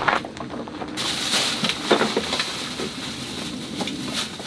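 Handling sounds from a cooler box being opened and searched through: a few knocks and clicks. Under them, a steady hiss starts suddenly about a second in.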